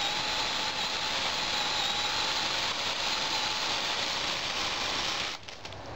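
Black & Decker CCS818 18-volt NiCd battery chainsaw cutting through a small log: a steady electric-motor whine with the chain running in the wood. It stops about five seconds in, followed by a few light clicks.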